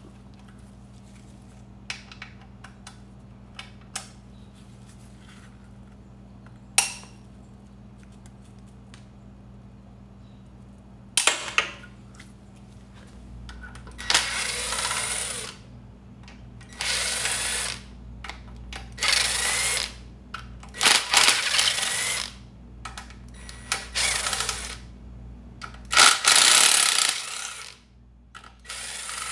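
Cordless driver spinning out the crankcase cover bolts of a Briggs & Stratton Quantum lawn mower engine, in about seven runs of a second or so each, after a few light clicks of metal parts being handled.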